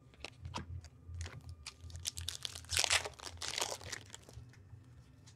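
A hockey card pack's foil wrapper being torn open and crinkled, a run of irregular crackling rustles that are loudest about three seconds in.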